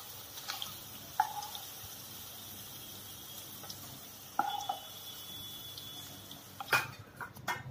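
Paneer cubes sizzling faintly in hot oil in a non-stick kadhai while a spatula clicks and scrapes against the pan and a steel bowl as they are lifted out, with a short metallic ring twice and a few sharper knocks near the end.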